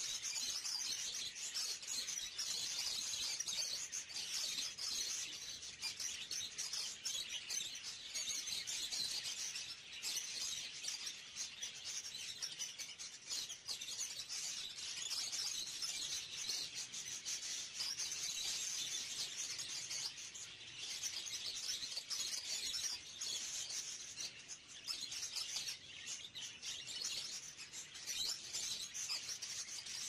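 A flock of caged budgerigars chattering and chirping without a break, many birds at once in a dense, high-pitched warble.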